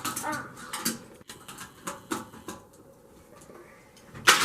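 A Hot Wheels die-cast car and plastic track set clicking and rattling as the car is sent through it, with a louder clatter about four seconds in.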